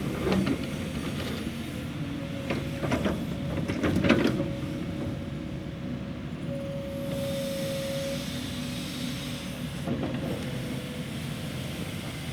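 Heavy construction machine's diesel engine running steadily, with several sharp clunks in the first few seconds and another near the end, and a thin steady tone for a second or two in the middle.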